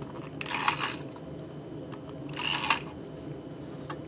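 Paper being handled during craft work: two short rasping strokes, each about half a second, nearly two seconds apart.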